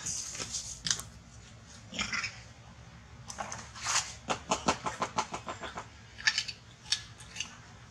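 Newborn long-tailed macaque giving short, high-pitched squeaks and cries, with a fast run of short calls, about seven a second, near the middle.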